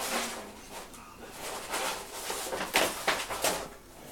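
Roll of paper being pushed and scraped across carpet, a run of short rustling scrapes, loudest about three seconds in, as a ferret gets hold of it near the end.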